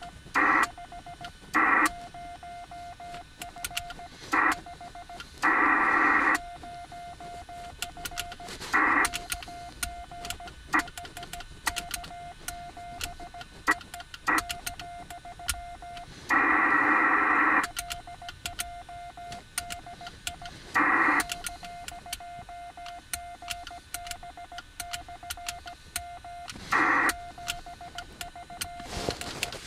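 Yaesu FT-897 HF transceiver's speaker receiving the 40-meter band: a steady whistle-like tone with frequent static crackles, broken about eight times by short, louder hissing bursts of signal.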